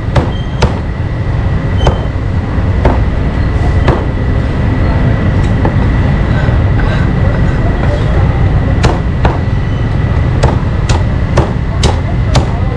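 Cleaver chopping meat on a cutting board: sharp, irregular strikes, a few near the start, then a quicker run of chops in the second half, over a steady low rumble of street traffic.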